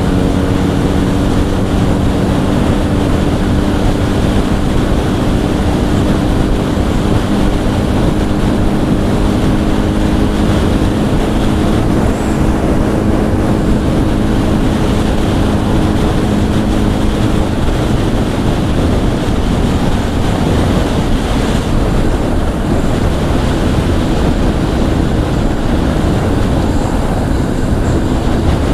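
Steady wind rush on a helmet-mounted mic while riding, with the Honda CBR1000's inline-four engine under it holding an even note at cruising speed; the engine tone fades under the wind about two-thirds of the way through.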